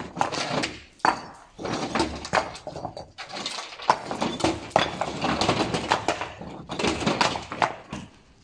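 Rough local shell stone slabs clattering and knocking against one another as they are pushed by hand off the bed of a small truck onto a pile. The knocks come in irregular quick runs, with short lulls about a second in, in the middle, and near the end.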